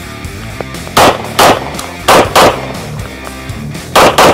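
Arsenal Firearms Strike One 9×19 mm pistol fired six times in three quick pairs, each shot sharp and loud.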